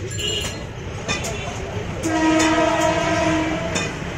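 A horn gives one long, steady blast starting about two seconds in and lasting about a second and a half, over a constant low background rumble. A few sharp clicks fall before and after it.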